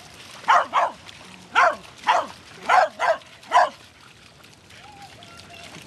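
A dog barking: six sharp barks in about three seconds, then it stops.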